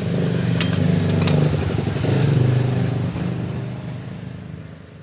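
Honda Vario 150 scooter engine running steadily, with two sharp clicks about half a second and just over a second in; the sound fades out near the end.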